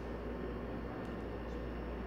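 Steady low hum and hiss of background noise, unchanging throughout, with no distinct events.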